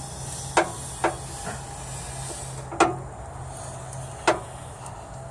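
Blowby hissing from the opened top end of a 1961 Land Rover Series II's 2.25-litre four-cylinder engine as it is turned over: compressed air is leaking past the piston rings into the crankcase. Four sharp clicks stand out over the hiss, with a steady low hum underneath.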